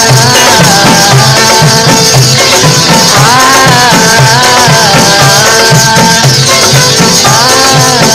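Qawwali music, an instrumental passage: hand drums keep a steady beat under a melodic phrase that rises and falls and repeats about every four seconds.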